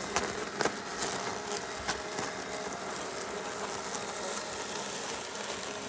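Mammotion Yuka robotic lawn mower driving across the grass, its electric motors giving a steady whine, with a couple of faint ticks in the first second.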